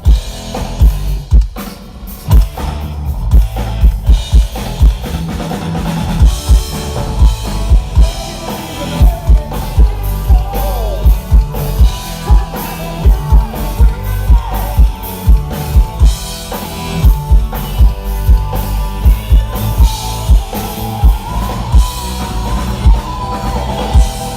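Live band playing a song, led by a drum kit: a steady bass-drum beat with snare hits, and melodic instrument lines over it.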